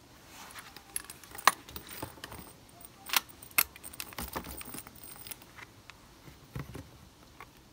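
Sharp clicks and small metallic rattles of quick-release air-line couplers and fittings being handled and snapped together on a coiled air hose. The loudest clicks come about a second and a half in and twice around three and a half seconds in.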